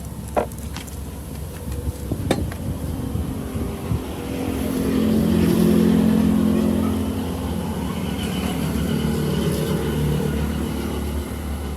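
A motor vehicle's engine running, growing louder to a peak about six seconds in and then fading, over a steady low hum. There are two sharp knocks, one under a second in and another about two seconds in.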